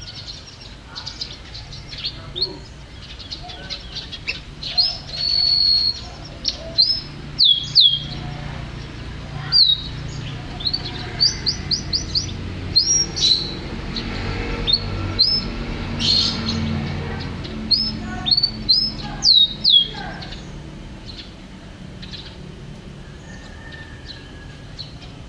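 Domestic canary singing: a run of short, sharp, high chirps, many sweeping downward, coming irregularly and stopping about twenty seconds in. A low rumble sits in the background.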